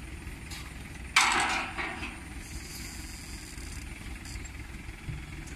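An engine idling low and steady, with a sudden loud metallic clank about a second in and a smaller one just after, as the steel loading ramps are shifted.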